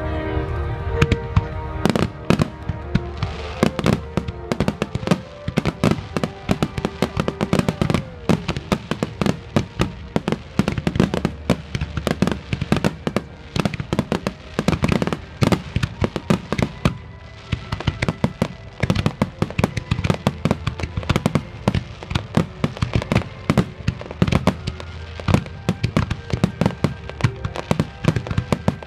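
Fireworks display going off in rapid succession, many sharp bangs and cracks a second without a break, with music playing underneath.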